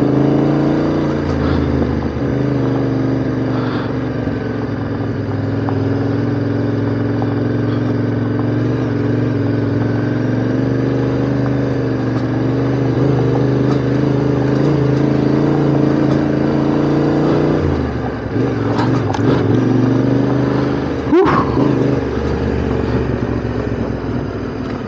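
Yamaha Ténéré 700's parallel-twin engine running at steady low revs on a rough dirt track, its pitch easing down and up a little. A few sharp knocks and some clatter come through in the last few seconds as the bike goes over the bumpy ground.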